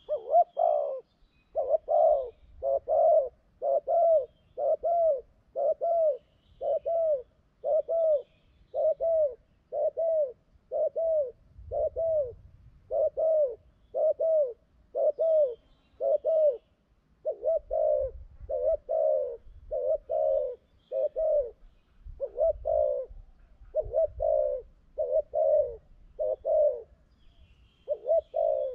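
Spotted dove cooing: short coos repeated steadily about once a second, some falling into close pairs further on.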